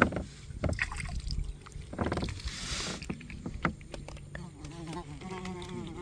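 Sharp clicks and knocks from a plastic fishing kayak as it moves through lily pads and reeds, with a short rushing swish about two seconds in.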